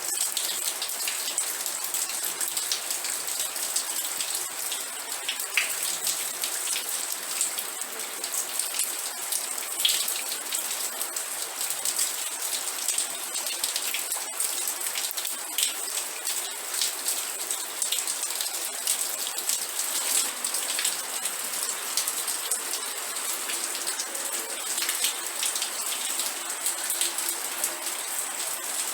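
Steady rain falling, a dense even hiss with many individual drops ticking throughout.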